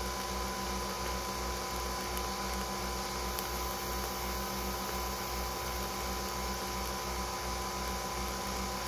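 Nespresso Vertuo coffee machine brewing: a steady mechanical hum with an even, rapid low pulsing, as coffee streams from the spout into a mug.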